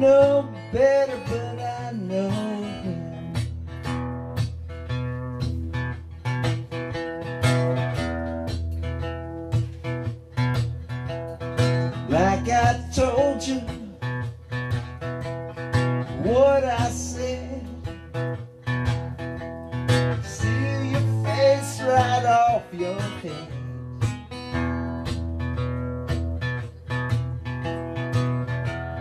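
Solo acoustic guitar playing an instrumental passage: a steady strummed rhythm with a few notes that slide up and down over it.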